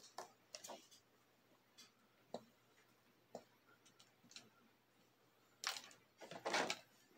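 Clear plastic toy packaging being handled and pushed aside: a few faint scattered clicks, then louder crinkling rustles near the end.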